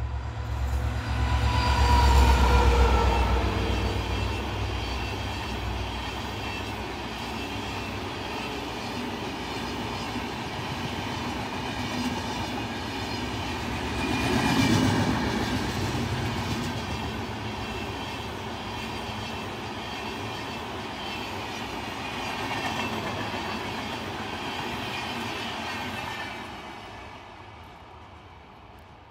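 Diesel-hauled express passenger train passing close by. The locomotive's heavy engine rumble is loudest about two seconds in. The LHB coaches then roll past with a steady rumble and wheel clatter, swelling about halfway, and fade as the train moves away near the end.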